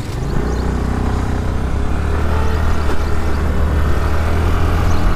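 A two-wheeler's engine pulling away, its pitch rising over the first second, then running steadily and close.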